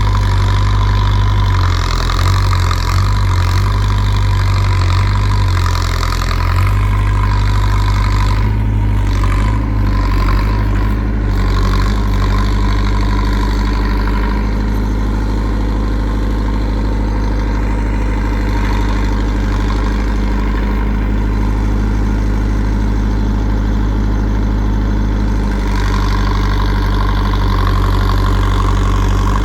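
JCB 3CX backhoe loader's diesel engine running steadily and loudly, its note shifting a few times as the machine works.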